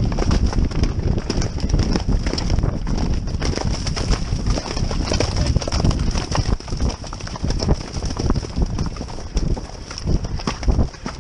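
A horse moving along a wet, muddy grass track, heard from the saddle: a constant run of hoofbeats and jolts over a steady low rumble.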